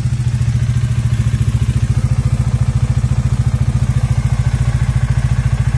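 Bajaj Dominar 400's single-cylinder engine idling steadily as it warms up, with a fast, even exhaust pulse.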